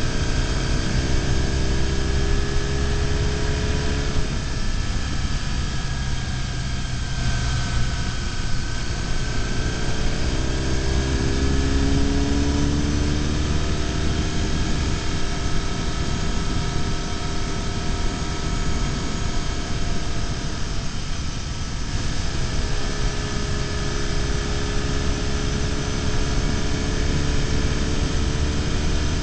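BMW R1150GS Adventure's flat-twin boxer engine running at road speed under a steady rush of wind. The engine note falls and climbs again a few times, rising about twelve seconds in and dipping near twenty-one seconds.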